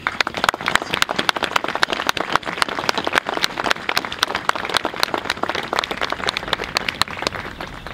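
A small crowd applauding, a dense patter of hand claps that starts at once and thins out near the end.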